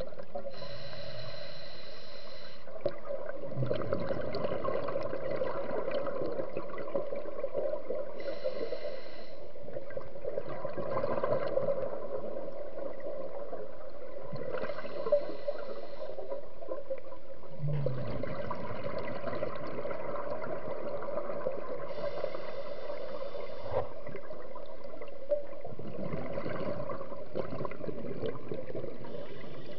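Scuba diver breathing underwater through a regulator. A short inhale with a thin whistle comes about every seven seconds, five times in all, and each is followed by a long stretch of bubbling exhaust.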